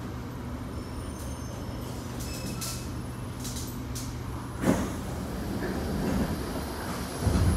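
Kawasaki C751B metro train running, heard from inside the car: a steady low hum that cuts off about halfway through, then two heavy thumps, the second one near the end and the loudest.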